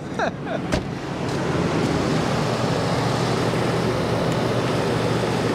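A 1995 Ford F-150's 5.0-litre V8 idling steadily just after being jump-started from a portable jump starter. There is a single sharp knock under a second in.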